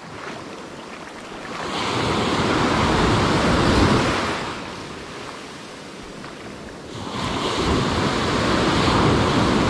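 Sea waves washing, swelling twice about five seconds apart as a rushing noise.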